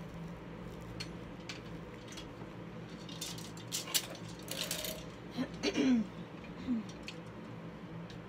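Rustling and light clicks of a person moving about close to the phone, building to a louder stretch of rustling about four to six seconds in, with a few short low gliding sounds just before six seconds.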